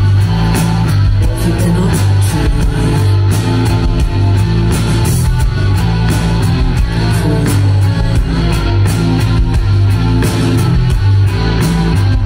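A live post-punk band playing loud through the stage PA: electric guitar, bass guitar and a drum kit with steady drum hits, and a woman's vocal at the microphone over the top.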